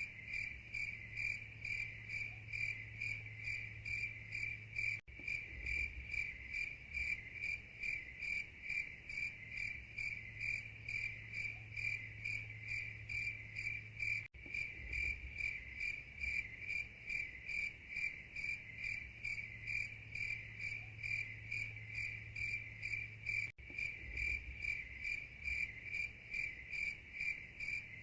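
Cricket chirping steadily in an even, high-pitched pulse of about three chirps a second, with three very brief gaps spaced about nine seconds apart.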